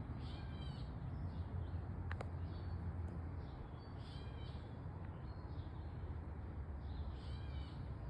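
A bird calling: several short arched calls a few seconds apart, over a steady low rumble.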